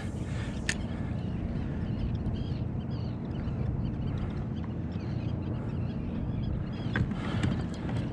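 Steady water and wind noise around a fishing kayak, with a few brief splashes of fish breaking the surface in a striped bass blitz, one shortly after the start and two about seven seconds in.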